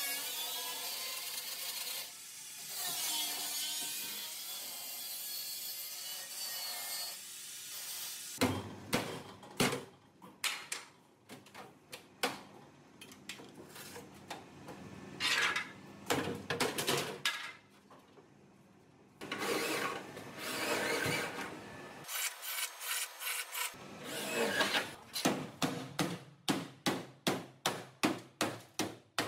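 Car body panels being stripped and scraped with hand tools. A steady sanding hiss runs for the first eight seconds or so, then come short rasping strokes that settle into a regular rhythm of about two a second near the end.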